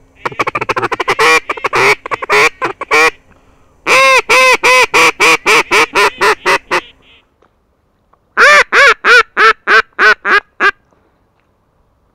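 Duck call blown in three runs of loud quacks: a quick chattering run, then about a dozen evenly spaced quacks, and after a short pause about nine more.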